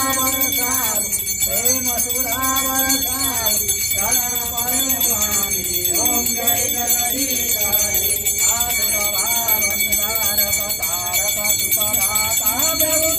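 Singing of a devotional hymn, with a bell ringing continuously throughout.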